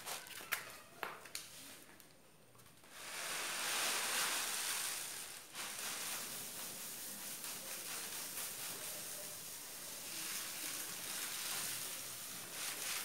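Raw rice grains pouring off a bamboo winnowing tray into a cloth bag: a steady, even hiss of sliding grains that starts about three seconds in, after a few light clicks.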